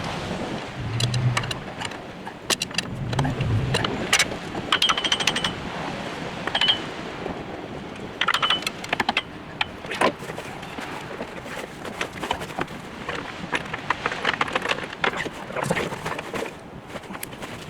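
Metal tools and parts clinking and clattering, a long irregular series of sharp knocks and rattles during hydraulic cylinder reassembly.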